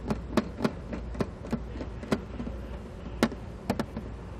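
Irregular sharp clicks, a few a second, as a small threaded adapter is screwed by hand onto the end of a Brake Buddy braking unit's rod, over a low steady hum.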